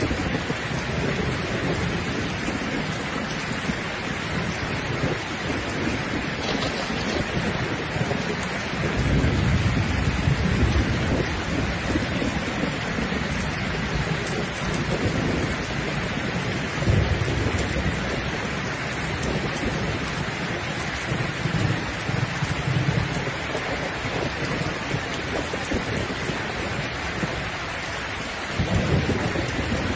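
Steady rain falling, with low rolls of thunder rumbling several times: a long one about nine seconds in, another around seventeen seconds, and one near the end.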